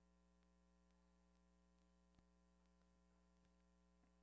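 Near silence: a faint steady electrical hum, with one faint tick about two seconds in.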